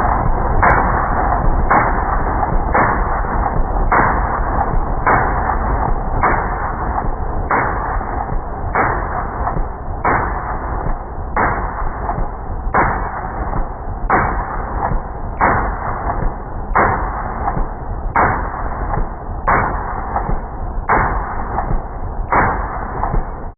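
Muffled outro music with a heavy, steady beat, a strong hit about every second and a quarter with lighter ones between; it starts suddenly and cuts off at the end.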